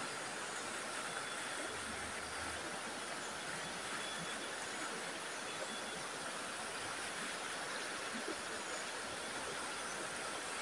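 Stream flowing over rocks: a steady, even rush of running water.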